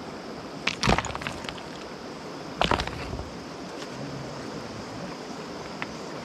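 River stones knocking together as they are picked up and set down by hand, in two short bursts of clacks, about a second in and near three seconds, over a steady rushing background.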